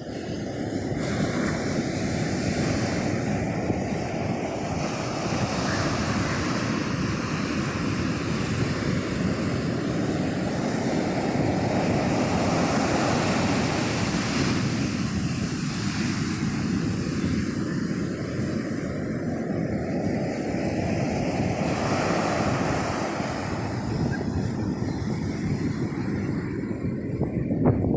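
Ocean surf: big waves breaking and washing up a beach, a continuous rush whose hiss swells and fades every several seconds as each wave breaks. Wind buffets the microphone underneath.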